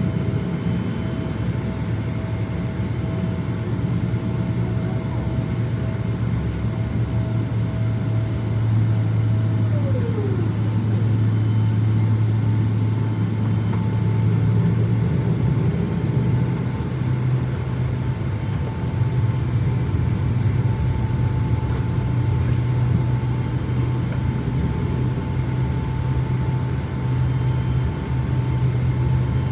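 Boeing 777-300ER's GE90 engines running, heard from inside the cabin: a steady low hum over rushing noise, with a few steady whining tones. One of the tones drops in pitch about ten seconds in.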